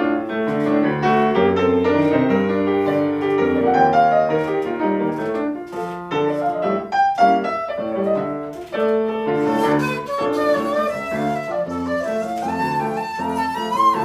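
A piano plays a flowing passage of chords. About two-thirds of the way in, a seven-hole 1.6-shaku shakuhachi (Japanese end-blown bamboo flute) joins it, its melody climbing with a wavering vibrato.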